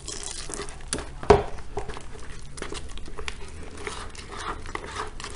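Red plastic spatula stirring and scraping a thick soap paste in a plastic bucket as boiling water is worked in to dissolve it: a run of small scrapes and clicks, with one sharper knock about a second in.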